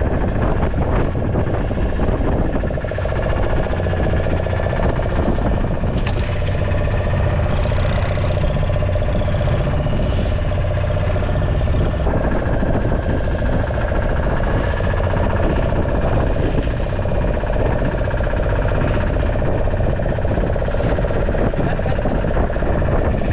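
Small fishing boat's engine running steadily, a constant hum that does not change pitch.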